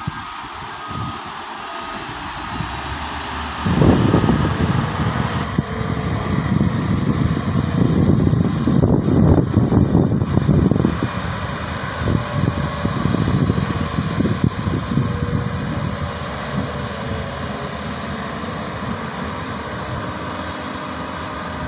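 Diesel engines of heavy earthmoving machinery running: first a tipper dump truck, then a Hyundai hydraulic excavator digging. From about four seconds in, the sound grows louder and heavier for several seconds, then settles to a steadier run.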